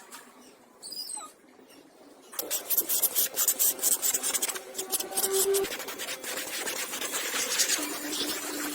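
Single-cylinder two-stroke engine of a restored Minsk 125cc motorcycle starting about two seconds in and running with a rapid rattle, unevenly at first, then more steadily.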